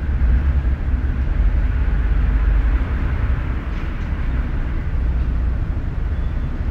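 City garage ambience: a steady low rumble with a fainter hiss above it, no distinct events.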